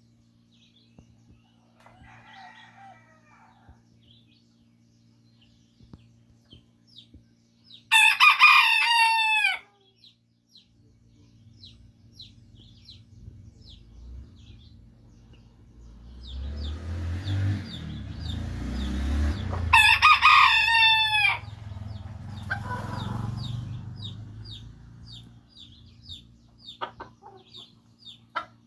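Small rooster crowing twice, each crow lasting about one and a half seconds, some twelve seconds apart, with a fainter crow near the start. Short high chirps repeat in between, and a low rumble swells around the second crow.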